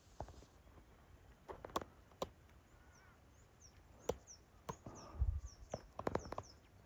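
Irregular footsteps snapping and crunching on dry sticks and leaf litter, with a dull thump about five seconds in. A small bird gives a run of short, high, falling chirps in the second half.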